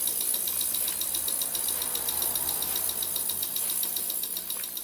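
Ultrasonic fuel-injector cleaning machine running with injectors in its bath: a steady high hiss with rapid, even ticking, several ticks a second.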